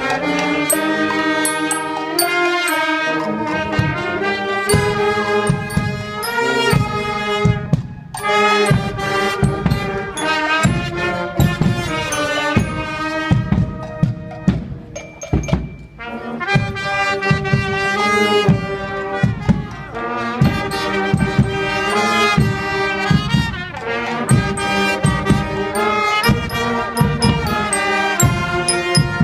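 Costumed carnival street band playing a tune on wind instruments over a steady beat. The music breaks off for a moment about eight seconds in and falls quieter briefly around the middle.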